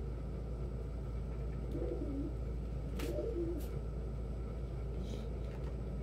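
Domestic pigeons cooing: two short, low coos about two and three seconds in, over a steady low hum, with a couple of sharp clicks around the second coo.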